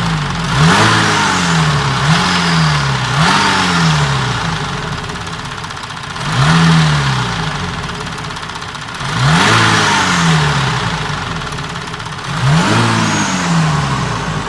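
Audi Q7's 3.0 TDI V6 diesel (CVMD) engine idling and being blipped six times, the revs rising quickly and falling back each time. The engine is being checked for a knock that the mechanics blame on the timing chain tensioners.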